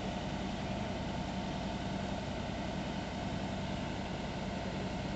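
Fire engine's engine running steadily at idle, under a constant hiss.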